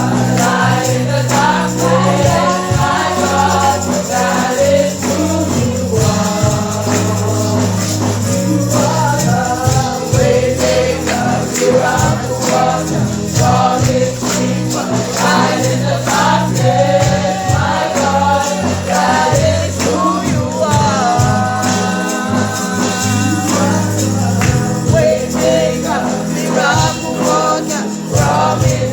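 Gospel worship music: a choir or congregation singing over a bass line and percussion with tambourine.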